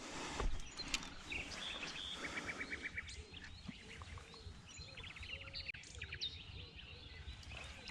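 Small birds singing: several short trills of quick repeated notes and scattered chirps, over a steady low rumble.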